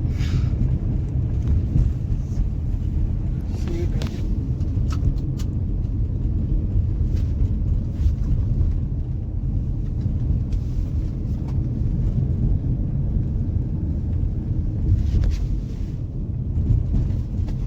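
Audi Q5 driving, heard from inside the cabin: a steady low road and engine rumble with a few light knocks, and no ticking from the sunroof, whose glass has been re-levelled so it no longer rubs on its seal.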